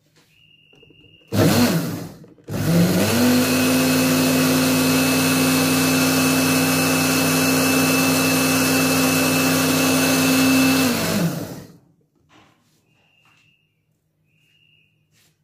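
Electric countertop blender blending lassi, a thin yogurt drink: a short pulse about a second in, then a steady run of about nine seconds. The motor winds up at the start of the run and winds down as it is switched off.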